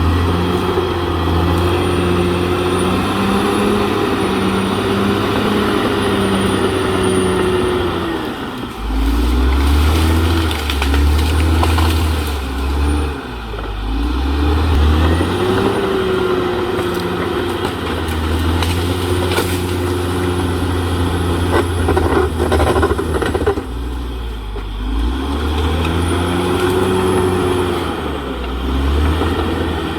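CAT D6R XL bulldozer's diesel engine working hard, its pitch dropping as it lugs under load and climbing back several times, with a faint high whine that rises and falls with it. A few sharp knocks come through over the engine.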